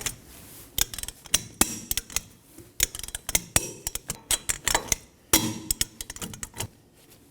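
Torque wrench ratcheting in quick runs of clicks as wheel lug nuts are tightened to 100 foot-pounds, with single sharp clicks in between.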